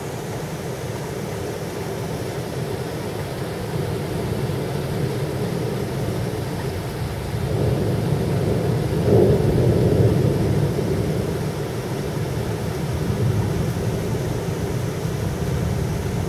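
Rolling thunder rumbling low and long, swelling about halfway through and then easing, over a steady hiss of rain.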